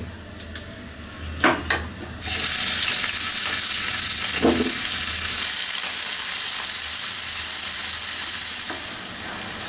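Salted shrimp frying in hot oil in a nonstick pan: two short knocks, then sizzling that starts suddenly about two seconds in and keeps on steadily, with a slotted spatula stirring through the shrimp.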